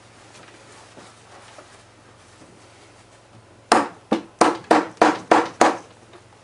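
Seven sharp knocks in quick succession, about three a second, starting a little past halfway: blows struck on a cloth-covered statue's head to break hardened filler paste loose from the seam gap.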